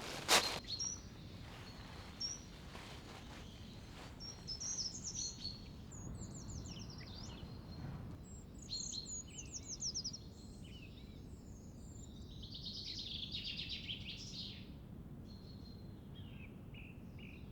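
Small songbirds singing and calling in a forest: high, thin notes and quick trills, with a denser burst of song about two-thirds of the way through. A couple of footsteps right at the start.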